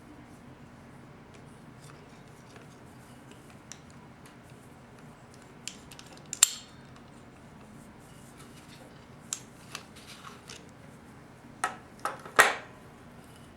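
Small metal parts clicking and clinking as they are handled and set down, over a faint steady hum. There are a few sharp clicks, one loud one about six seconds in and a loud cluster near the end.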